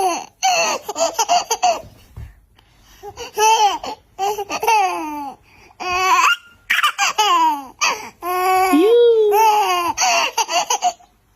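A baby laughing in four bouts of a second or two each, with short pauses between; the longest bout, near the end, includes a held squeal.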